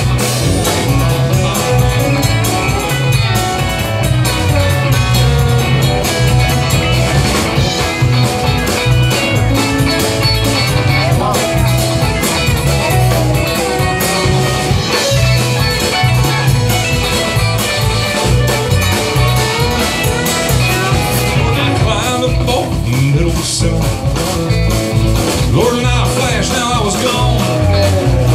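Live country-rock band playing, electric guitars over bass and drums, at a steady, loud level.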